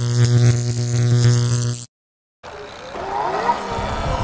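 A steady low droning tone plays for about two seconds and cuts off. After half a second of silence, a Sur Ron electric dirt bike's motor whines, rising in pitch as it accelerates, with low rumbling wind noise on the microphone.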